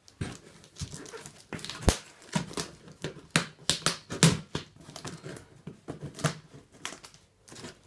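Hands picking at and pulling packing tape on a heavily taped cardboard box: irregular crackles, taps and scrapes of tape and cardboard, dying away near the end.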